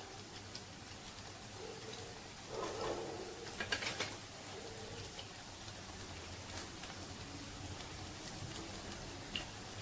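Minced-meat mixture sizzling in hot oil in a frying pan, a steady fine hiss with scattered pops and crackles. A louder spell of crackling comes about three to four seconds in.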